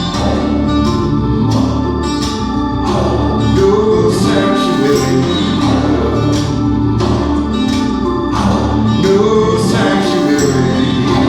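A song playing back through Audio Physic Tempo VI loudspeakers, with a steady beat and singing voices.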